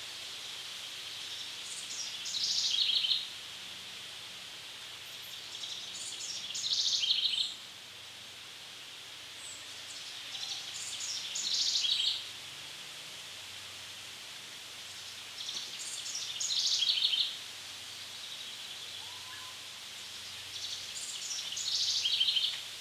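A songbird in woodland singing the same short phrase five times, about every four to five seconds, each phrase high-pitched, about two seconds long and growing louder into a rapid trill at its end. A steady faint high hiss runs beneath it.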